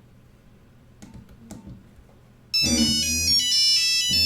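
Nokia 3310's stock ringtone, a loud synthesized melody of quick stepping notes, starting suddenly about two and a half seconds in after a couple of faint clicks.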